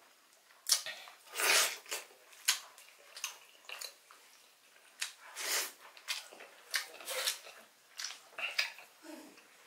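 Close-up eating sounds of someone eating grilled chicken and squid with rice by hand: wet chewing and lip-smacking in irregular clicks and smacks, with a couple of longer noisy bursts.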